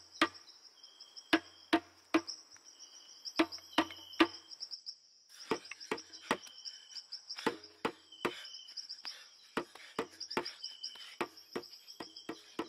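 Insects chirring in a steady, high, pulsing drone, with sharp irregular knocks scattered through it. Everything drops out for a moment about five seconds in.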